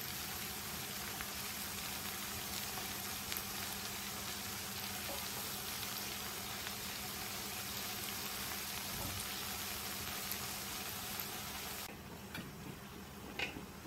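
Mixed vegetables frying in oil in a large aluminium pot, a steady sizzling hiss as they are stirred with a spatula. The sizzle drops off abruptly near the end, followed by a brief knock.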